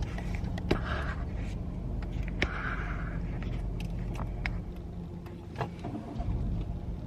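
Car driving, heard from inside the cabin: a steady low road and engine rumble with scattered light clicks and rattles, and a couple of brief hissing sounds.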